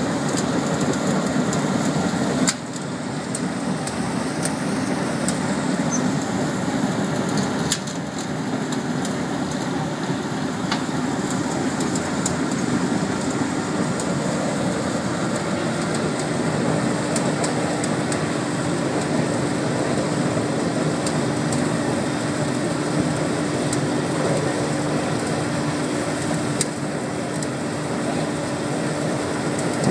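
Haiqi 300,000 kcal biomass sawdust burner firing, a steady rushing roar of flame and combustion-air blower, with scattered faint ticks. The level dips suddenly about two and a half seconds in and again near eight seconds, and a steady low hum joins about halfway through.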